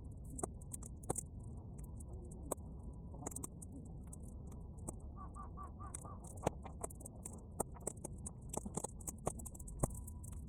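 A fire of half-dried weeds crackling, with sharp pops and snaps at irregular moments over a low steady rumble, sped up to three times normal speed. About halfway through there is a brief run of quick repeated high notes.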